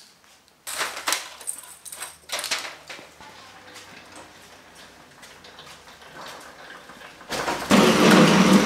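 Footsteps and light knocks, then from about seven seconds in a loud, continuous rattling clatter as a Honda rotary push mower is wheeled across a concrete garage floor.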